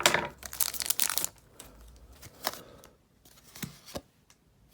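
A trading-card booster pack being torn open, its wrapper crinkling in a burst of rustling for about the first second and a half. A few light clicks and taps follow as the cards are handled.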